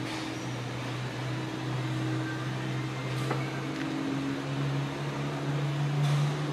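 Steady ground drone from a Boeing 777-200ER airliner at its stand, with a low hum that rises slowly in pitch.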